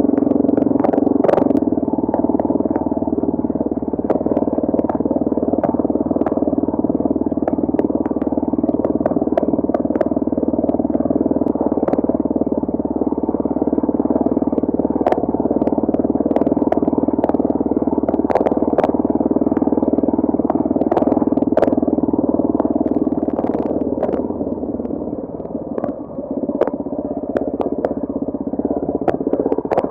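A trail bike's motor running at a steady speed while being ridden over a rough trail. It makes a muffled, steady drone with scattered clicks and knocks from bumps, and it eases off briefly near the end.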